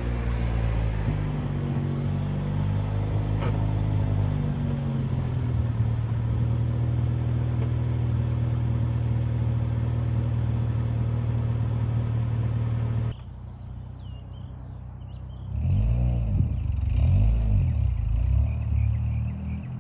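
1996 Acura Integra GSR's 1.8-litre DOHC VTEC four-cylinder running through a new aftermarket catback exhaust. The revs rise and fall, then hold steady for several seconds before the sound cuts off abruptly. After a short quieter stretch come a few quick revs, each rising and falling.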